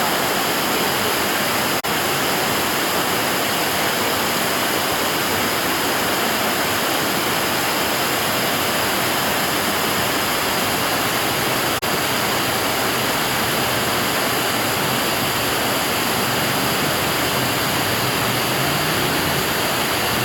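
River water rushing steadily, a continuous even rush, with two momentary dropouts about two seconds in and near the middle.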